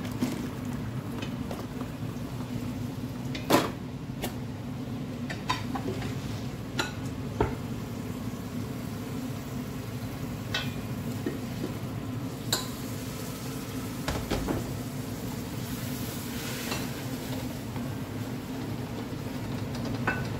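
A cooking utensil stirring a pot of curry on the stove, knocking and scraping against the pot in a dozen or so irregular sharp clinks, the loudest about three and a half seconds in, over a steady low hum.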